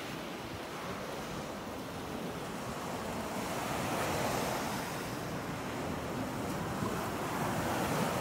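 Ocean surf breaking and washing up a sand beach, a steady rush that swells louder about four seconds in and again near the end.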